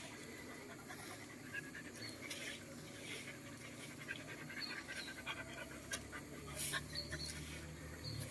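A dog panting steadily with its mouth open, with a low hum coming in about halfway through.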